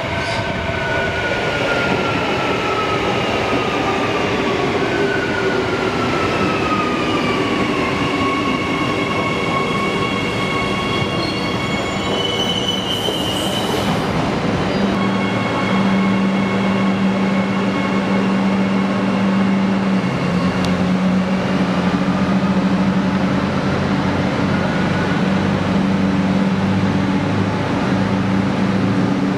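Adelaide Metro 4000-series electric train running past. Its motor whine falls in pitch over the first several seconds as it slows, a steady low hum follows, and a whine rises again later on.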